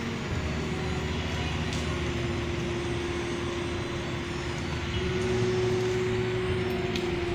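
Steady traffic noise in the rain: a vehicle engine hum over a constant hiss, swelling a little about five seconds in.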